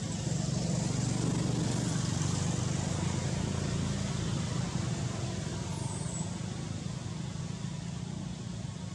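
A motor vehicle's engine running with a steady low hum, easing off slightly over the second half.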